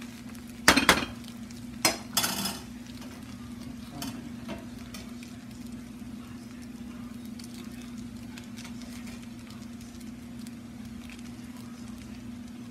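Rice noodles (pancit bihon) with vegetables being stir-fried in a wok: the spatula scrapes and knocks against the pan a few times in the first two and a half seconds, then the noodles sizzle steadily over a constant low hum.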